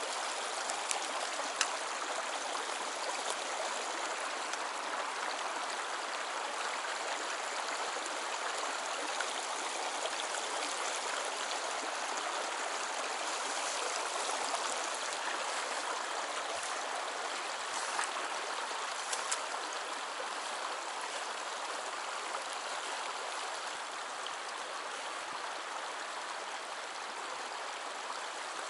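Shallow stream running over a stony bed: a steady rushing babble of water, with a few faint ticks.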